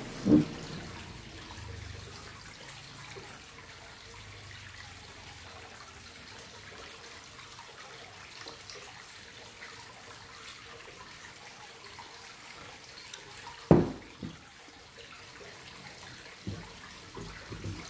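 Faint steady hiss broken by a few short low knocks. One comes at the very start, and a louder one about 14 seconds in is followed by several softer ones, as a glass cup of tea is picked up, drunk from and set down at the table.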